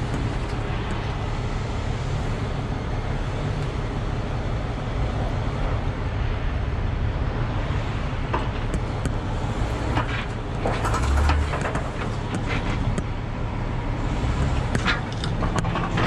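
A car's engine running at low speed as it is driven up onto a car-carrier trailer. A cluster of knocks and clatter comes about ten seconds in, and again shortly before the end.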